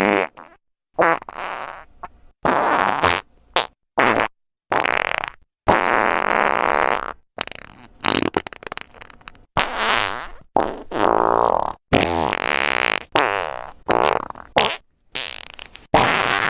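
A rapid run of recorded fart sound effects, more than a dozen in a row, each lasting a second or so with brief silences between them.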